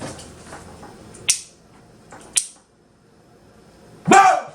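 Two short, sharp, high-pitched scrapes a second apart, then a loud vocal exclamation near the end.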